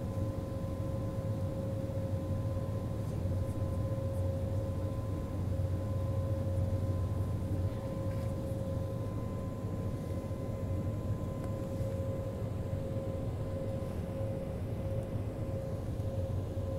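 Steady cabin hum of an airliner standing on the ground: a low drone with a constant mid-pitched whine and a fainter, higher whine above it.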